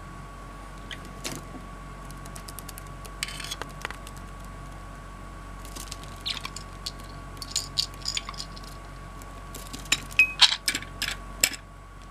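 Budgerigar moving about on a tatami mat and pushing a woven rattan ball: scattered light clicks and rustles. A quick run of louder clicks and knocks comes near the end.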